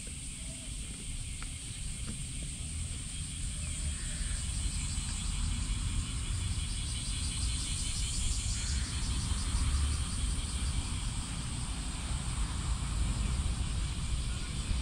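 Cicadas buzzing in the trees: a steady high-pitched drone with a faster pulsing trill that grows louder about four seconds in, over a low rumble.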